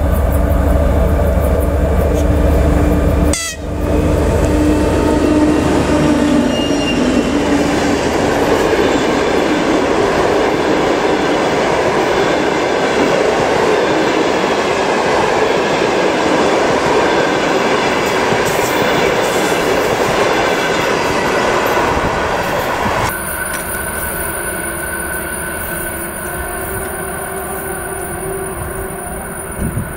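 TEP70 diesel locomotive hauling a passenger train under power: a strong low engine drone as it approaches. Then the carriages pass close by with a loud continuous rumble of wheels on rails, and after about 23 seconds the sound is quieter and slowly fades as the train moves away.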